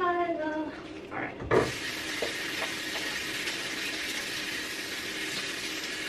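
Tap water running steadily into a sink, turned on about a second and a half in with a short bump.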